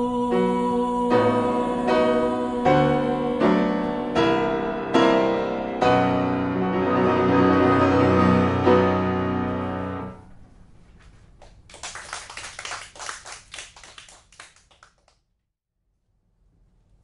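Grand piano playing the closing bars of a song: a series of struck chords about every half second to a second, ending on a long held chord about ten seconds in. Then a few seconds of audience applause that dies away, followed by a brief silence.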